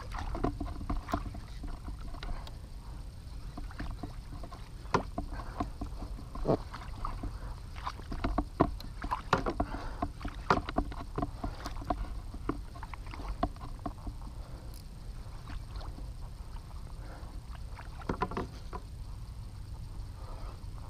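Fishing kayak on the water while a fish is played on a jigging rod and reel: irregular clicks and knocks from the tackle and hull, bunched in the middle and again near the end, over a steady low rumble.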